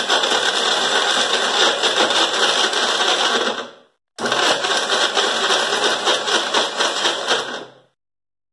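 Electric mixer grinder with a steel jar grinding dates, jaggery and water into a paste. It makes two runs of about four seconds each, with the motor winding down briefly between them and again at the end.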